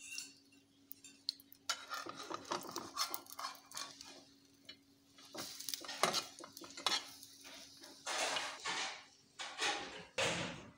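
A utensil scraping and clinking against a metal frying pan as a folded egg omelette is lifted out of the pan, in irregular clatters and scrapes.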